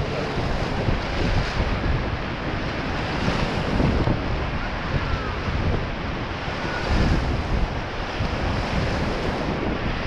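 Whitewater rapids rushing and splashing around an inflatable raft, with wind buffeting the microphone.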